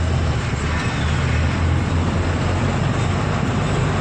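Truck engine running with a steady low drone and road noise, heard from inside the cab of an empty truck while driving.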